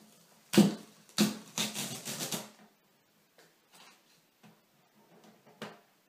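Hard acrylic pieces clacking against the glass of an aquarium as they are handled: one sharp knock about half a second in, a quick run of clacks over the next second and a half, then a few faint ticks.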